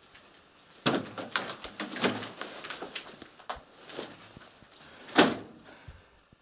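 Footsteps on gritty concrete stairs: an irregular run of steps and scrapes, with one louder knock about five seconds in.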